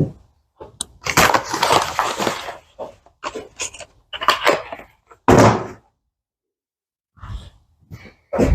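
Bike parts packaging being handled as inner tubes are brought out: a rustling, crinkling stretch about a second in, scattered clicks and taps, and one solid thud a little past halfway, as of something set down.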